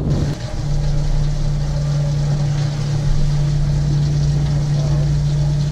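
A boat's motor running steadily with a low, even hum.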